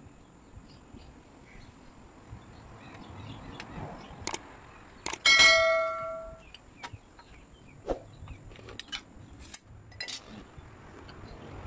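Metal tools and tubing being handled on a concrete floor: scattered clicks and knocks, with one loud, ringing metallic clang about five seconds in.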